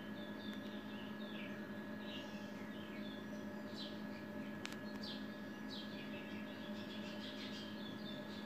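Small birds chirping in many short, irregular, falling notes over a steady low hum.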